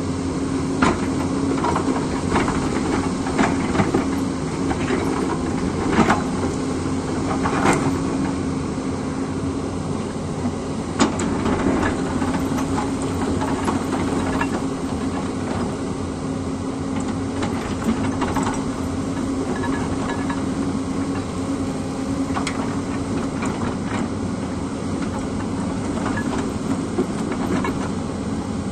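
Hyundai 220LC crawler excavator's diesel engine running steadily under load with a constant hum, as its steel bucket digs and scrapes into rocky earth. Sharp knocks of rock and metal come every second or two early on and grow sparser later.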